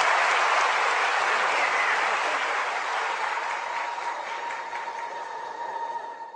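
Large audience applauding, the applause slowly fading and then cut off abruptly near the end.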